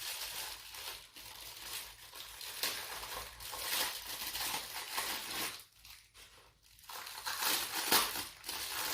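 Plastic packaging crinkling and rustling in irregular bursts as a split pour cup is unwrapped and handled, with a few light clinks and a short lull a little before six seconds in.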